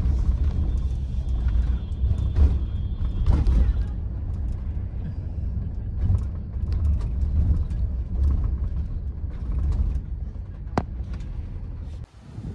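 Bus engine and road noise heard from inside the moving bus: a steady low rumble with scattered rattles and knocks from the cabin, and a sharp click near the end.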